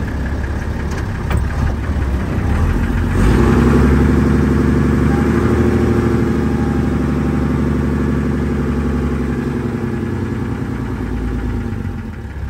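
Mercedes-Benz Unimog 416's six-cylinder diesel heard from inside the cab while driving. It is idling, revs up about three seconds in as the truck pulls away, runs steadily under load, then eases off near the end.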